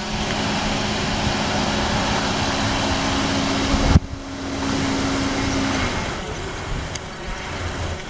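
Steady hum of a car idling close by, with wind noise on the microphone. A sharp click comes about four seconds in, and the hum fades out soon after.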